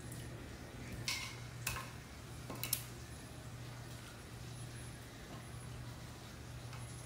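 A low steady hum with three short clicks or knocks in the first three seconds, the last one the loudest.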